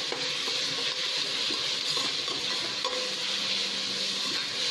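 Sliced onions, green chillies and ginger-garlic paste sizzling steadily in hot oil in a pressure cooker, stirred with a spatula that scrapes against the pan, as the raw smell of the ginger-garlic paste is fried off.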